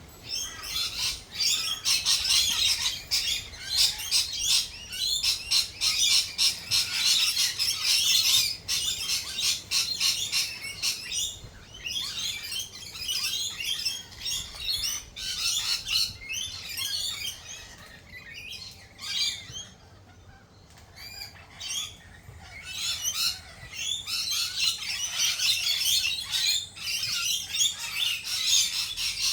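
Small birds chirping and twittering, many rapid calls overlapping in a busy chorus, easing into a lull about two thirds of the way through before picking up again.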